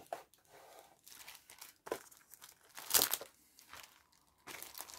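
Crinkling and rustling of the plastic bags holding a model kit's parts as they are handled, with a louder crackle about three seconds in and steadier rustling near the end.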